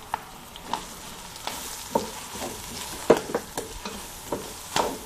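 Wooden spatula stirring and scraping sautéing meat, seafood and onion in a stainless-steel pot, over a light sizzle of frying. Irregular knocks of the spatula against the pot, the loudest about three seconds in and again near the end.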